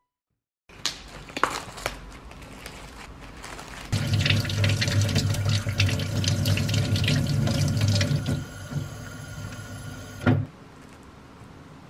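Kitchen tap running, water splashing over an ear of corn rinsed by hand at the sink. The splashing is loudest in the middle, and the flow stops suddenly about ten seconds in with a short knock as the tap is turned off.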